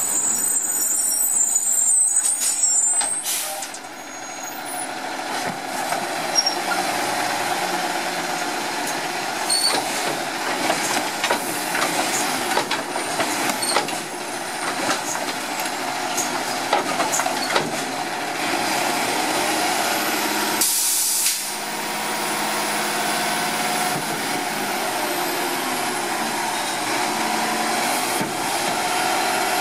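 Diesel Autocar WXLL garbage truck with a Labrie Automizer body pulling up and running at the curb. There is a high squeal during the first few seconds, scattered knocks and clanks, and a sharp burst of air hiss about 21 seconds in.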